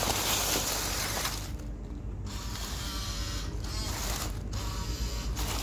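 WPL B-1 RC military truck's small electric motor and gearbox whirring and ratcheting as it drives through deep dry leaves, with the leaves crackling under the tyres for the first second and a half. It is straining on the leafy slope, close to getting stuck.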